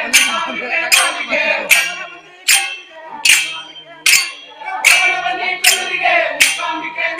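Group singing a devotional bhajan, with a sharp ringing percussion strike about every 0.8 seconds keeping the beat.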